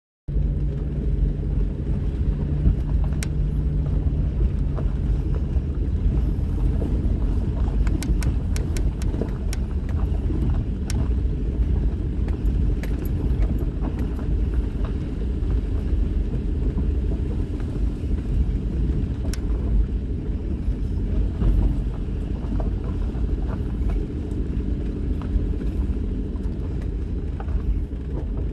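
Steady low rumble of a car driving, heard from inside the vehicle, with scattered light clicks and rattles, most of them about eight to eleven seconds in.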